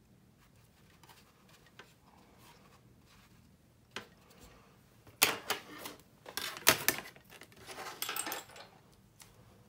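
Hobby tools and a plastic cutting mat being handled on a workbench: a run of small clacks and rustles in the second half, the sharpest clack about two-thirds of the way through.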